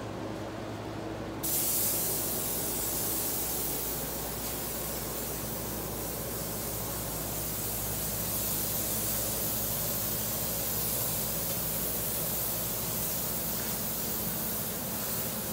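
Airbrush spraying paint onto a fabric dress: a steady hiss of air and paint that starts about a second and a half in and runs on without a break, over a steady low hum.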